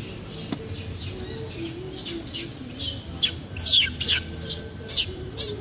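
Bird chirping: a quick series of short, sharp calls, each sliding steeply down in pitch, starting about two seconds in and coming thickest and loudest in the second half.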